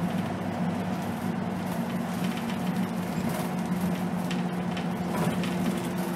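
2010 Scania K280 city bus's five-cylinder diesel engine running steadily as the bus drives along, heard from the front of the bus, with occasional light rattles.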